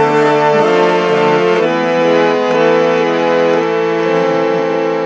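Harmonium playing a kirtan melody in sustained chords, moving to a new chord twice.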